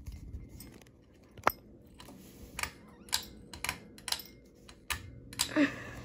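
Ceiling fan pull-chain switch being worked: a series of sharp, irregular clicks and ticks of the metal chain. About five seconds in, a steady low motor hum sets in as the fan is switched to high speed.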